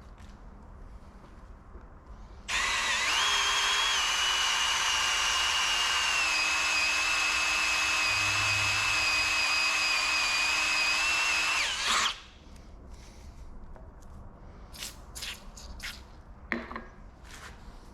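Electric drill running for about nine seconds as a bit cuts a 3/8-inch hole in metal, its whine settling a little lower partway through, then stopping. A few light clicks and knocks follow.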